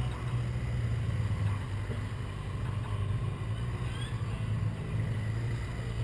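Motorcycle engine running close by, a steady low rumble, with faint engine sound from a motorcycle riding around the lot further off.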